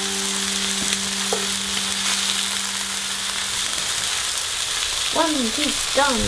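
Northern pike fillets sizzling steadily as they fry in olive oil and butter in a pan, nearly cooked through. A steady low tone fades out about four seconds in, and brief rising-and-falling vocal sounds come near the end.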